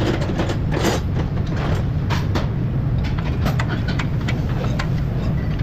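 Hand ratchet wrench clicking in short irregular runs on a suspension nut, over a steady low drone.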